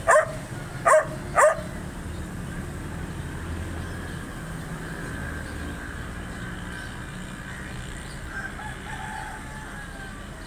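Dog barking three times, loud and sharp, in the first second and a half, then stopping; a low steady background rumble remains, with a faint drawn-out call about eight seconds in.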